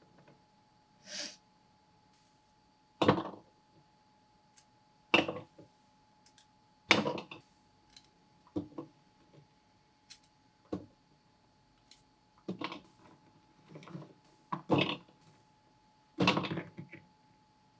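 A person sniffling repeatedly through the nose, about seven short sniffs a few seconds apart, brought on by the pungent fumes of fresh garlic being trimmed. Between the sniffs a small knife clicks lightly on a plastic cutting board.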